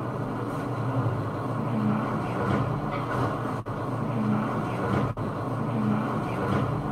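Playback of a ghost-hunting EVP recording: a steady, rumbling hiss of recorder noise that cuts out briefly twice. Somewhere in the noise a faint voice is taken for a man saying "yeah, freaking right, man".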